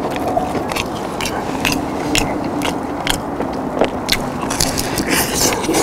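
Close-up crunching of crispy fried chicken batter being bitten and chewed, a rapid irregular series of sharp crackly crunches.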